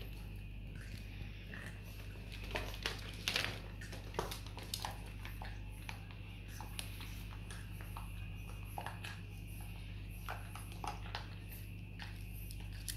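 Scattered short clicks and taps of a Boston terrier puppy moving about on a hard tile floor, a few close together about three seconds in, over a steady low hum.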